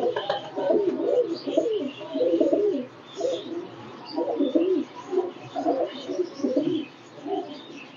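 Domestic high-flying pigeons cooing over and over, one coo after another with hardly a gap, with faint high chirps above them.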